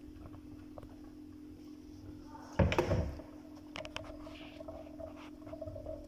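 A green plastic bowl set down in a stainless steel kitchen sink: one short, loud knock about two and a half seconds in, among faint clicks and a steady low hum.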